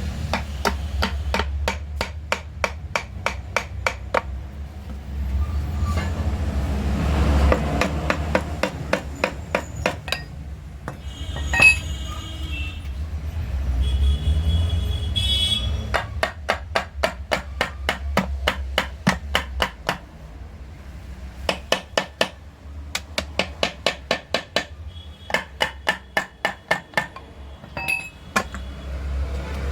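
Hammer striking metal in quick runs of blows, about three to four a second, with short pauses between runs and a couple of ringing metallic clinks, over a steady low rumble.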